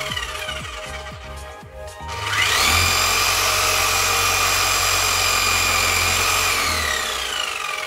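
Milwaukee K750S hammer drill's electric motor, with a newly replaced armature, on a test run. It winds down at first, then is switched on again: a rising whine that holds steady for about four seconds and winds down near the end.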